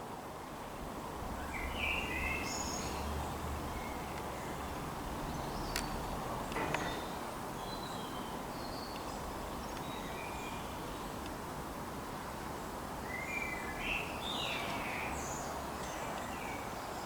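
Birds chirping in short scattered calls over a steady outdoor background hum.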